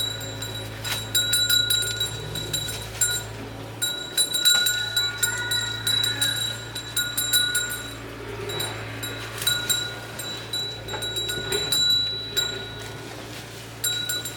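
Farmyard animal sounds: scattered clicks and knocks with a few faint goat calls, over a steady low hum.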